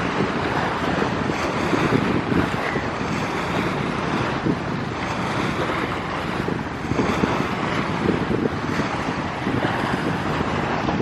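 Steady rushing noise of a departing jet airliner climbing away, mixed with wind buffeting the microphone.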